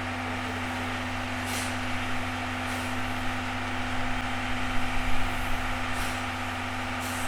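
A standing train: a steady mechanical hum with short hisses of air or steam now and then.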